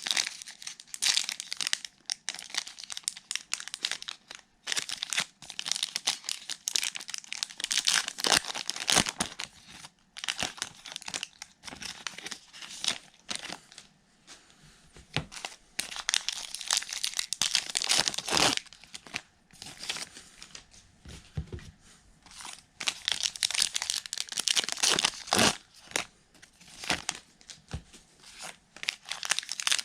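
Baseball card pack wrappers being torn open and crumpled, crinkling in bursts with short quieter pauses.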